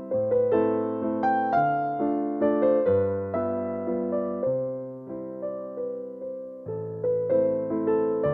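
Background music: a piano or electric piano playing a gentle melody over sustained chords that change every second or two.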